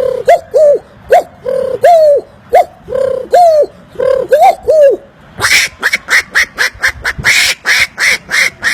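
A man imitating animal calls with his mouth: a regular run of short pitched calls that rise and fall, about two a second, then about five seconds in a faster run of harsher, hissing calls.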